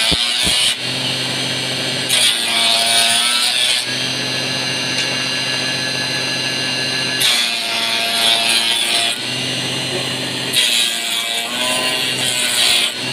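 Homemade dowel-turning machine for flag-handle sticks: its motor hums steadily while wooden sticks are pushed through the spinning cutter. Each pass is a harsh cutting noise of about two seconds, with the motor's pitch dropping under the load. The tail of one pass comes at the start, then three full passes about 2, 7 and 10.5 seconds in.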